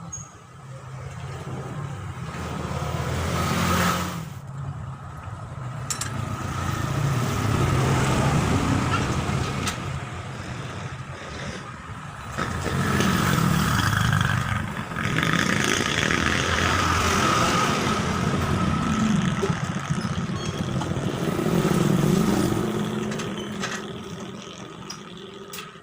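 An engine running, its sound swelling and fading several times over a low rumble with a steady high whine.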